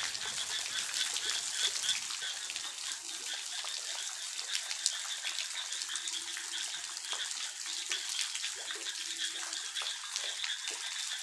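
Steady hiss of light rain falling on a flooded rice paddy, with many small ticks of drops throughout.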